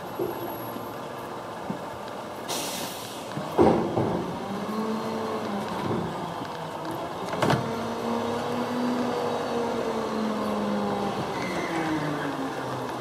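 An engine running with a hum whose pitch drifts slowly up and down. There is a short hiss about two and a half seconds in, and two sharp knocks, the louder one near four seconds.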